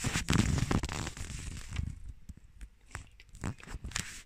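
Handling noise of a phone being held and moved: fingers rubbing and knocking on the body near the microphone, giving a crackling, rustling noise for about two seconds, then quieter with a few scattered clicks.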